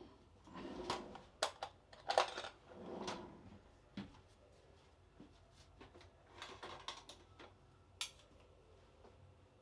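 A utensil scraping and clinking against a pan and bowl as cooked beef is served onto rice. It comes in a few short scraping bursts, with sharp clicks in between.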